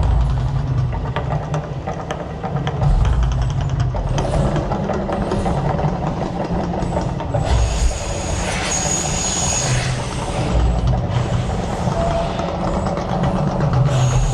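Mirage volcano show's eruption effects: a deep, uneven rumble with a loud rushing, hissing burst about halfway through and another starting near the end.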